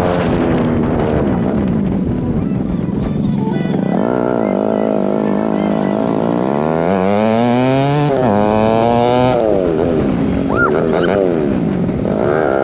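Motorcycle engines running on the move, the pitch climbing and falling as the throttle opens and closes, with two abrupt drops in pitch partway through.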